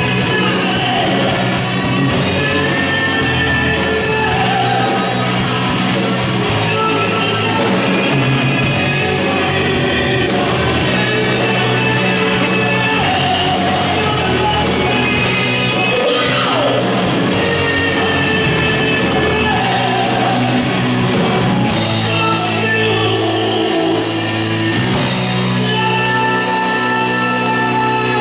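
Rock band playing live: two electric guitars, electric bass and drum kit, with singing.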